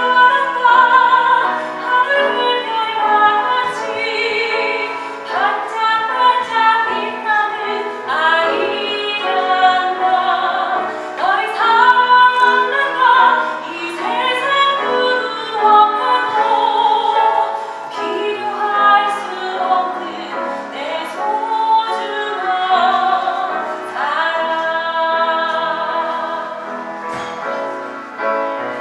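Children's choir singing a song in unison and harmony, with continuous melody lines.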